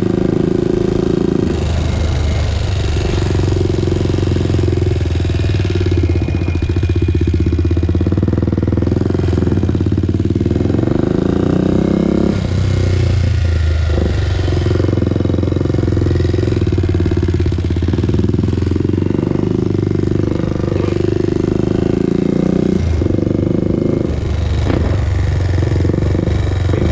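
Honda TRX400EX's single-cylinder four-stroke engine running loud and steady while the quad is ridden, its pitch dropping and picking back up several times as the throttle is eased off and reopened.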